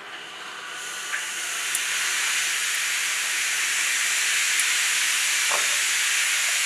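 A steady hiss, like gas or air escaping, that swells in over the first two seconds and then holds level, with a few faint ticks.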